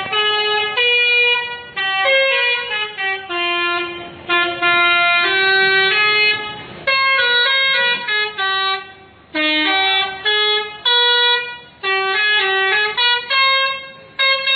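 Indonesian 'telolet' bus horn, a set of air-horn trumpets, playing a tune of short and held notes with several pitches sounding together, broken by brief pauses between phrases.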